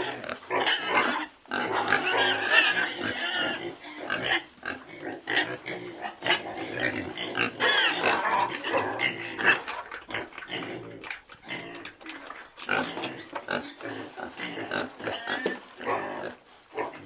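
Pigs grunting and squealing, many short overlapping calls in quick succession.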